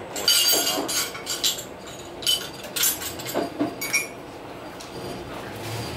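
Glasses and tableware clinking and rattling irregularly aboard the moving train, the sharp clinks bunched in the first four seconds over the steady running noise of the railcar.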